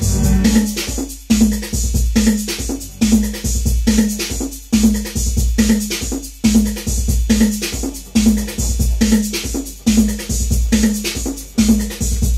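Detroit techno played live on a Roland TR-808 drum machine and a Roland Jupiter-6 synthesizer: a steady beat with a strong hit a little under once a second over a sustained low bass, and a short repeating synth note.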